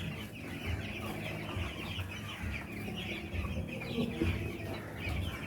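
A flock of young broiler chicks in a poultry house, many birds chirping and peeping at once in a steady continuous chatter.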